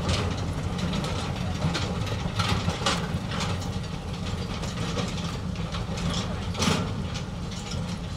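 Train of narrow-gauge steel tipping skip wagons rolling along the rails, wheels and couplings rattling and clanking irregularly, with a sharper knock about six and a half seconds in. A steady low engine drone from the hauling locomotive runs beneath.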